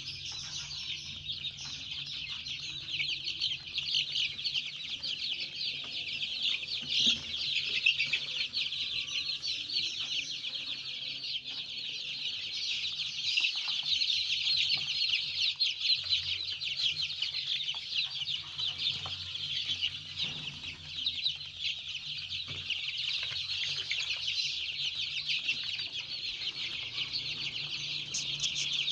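A brood of 17-day-old Joper chicks (ayam kampung super) peeping all together in a dense, continuous chorus of high, rapid cheeps, with a faint steady low hum underneath.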